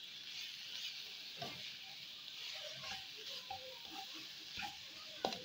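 Chicken and shredded vegetables sizzling in oil in a non-stick wok, stirred with a plastic spatula that scrapes and knocks against the pan now and then. The sharpest knock comes near the end.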